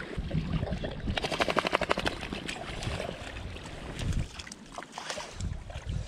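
A fly reel's click-and-pawl ratchet buzzing briefly, a quick even run of clicks lasting about a second, as line is pulled through it. Around it are rustling and knocks from handling the rod and line.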